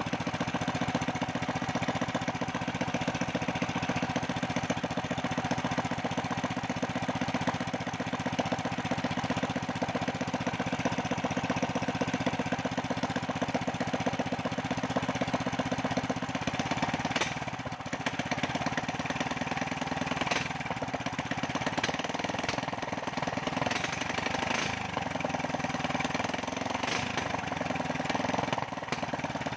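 Small 8 hp petrol engine with a 30 mm Keihin carburettor running steadily, then revved up and let back down several times in the second half.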